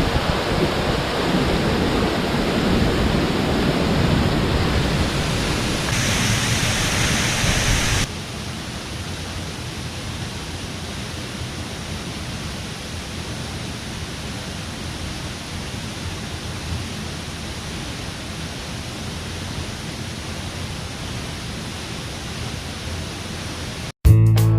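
Haew Suwat waterfall, a steady rushing noise of falling water. It drops noticeably in level about a third of the way in.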